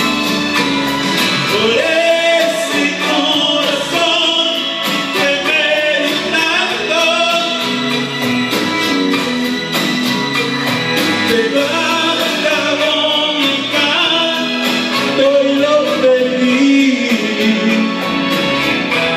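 Karaoke: a man singing into a microphone over a loud backing track with a steady beat.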